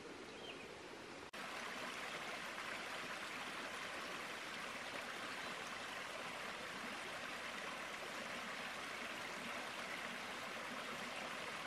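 Small waterfall in a clough: a steady rush of falling water, stepping up abruptly to a louder level about a second in.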